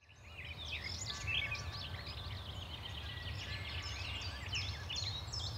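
Several small birds singing in a dawn chorus of quick chirps and whistles over a low steady hum, fading in at the start.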